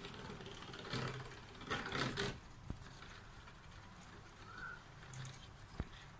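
Judgement Joker Beyblade spinning top whirring in a plastic stadium, a faint mechanical rattle. A short burst of noise about two seconds in and two sharp clicks, one near the middle and one near the end.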